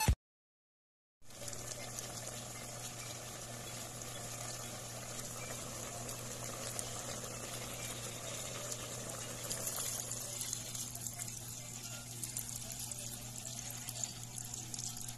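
A pot of vegetables cooking in water on the stove: a steady low hiss with a faint hum underneath. It starts about a second in, after a brief silence.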